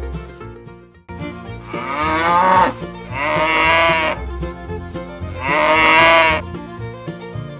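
Bluegrass-style background music with three loud, wavering, bleat-like animal calls over it, each about a second long.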